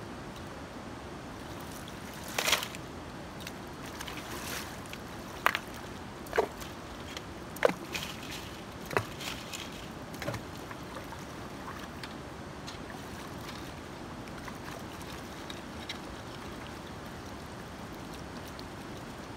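Shallow river running steadily, with a run of sharp splashes and knocks between about two and ten seconds in as river gravel is dug with a shovel in the water.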